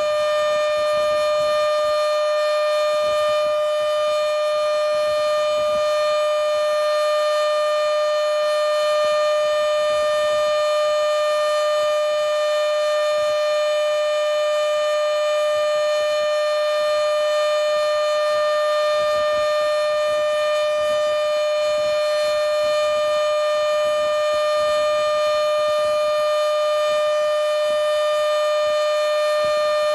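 Federal Signal Model 7B electromechanical siren sounding a steady alert: one loud tone at about 600 Hz, held without rising or falling.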